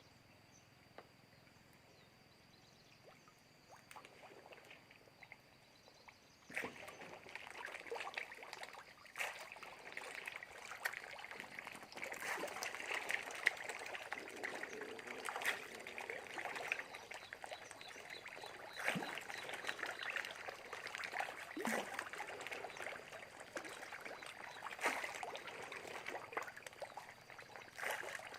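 Water splashing and trickling at a pond surface: faint at first, then from about six seconds in a busy run of small, irregular splashes.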